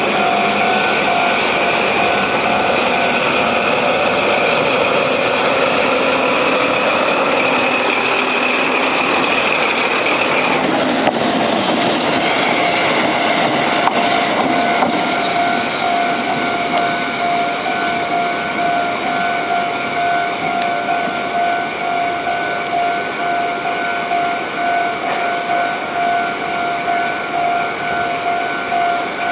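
A Japanese level-crossing warning bell rings in an even, pulsing pattern while a pair of ND552 diesel locomotives pass. The engine and wheel noise dies away about eleven seconds in, leaving the bell ringing on its own.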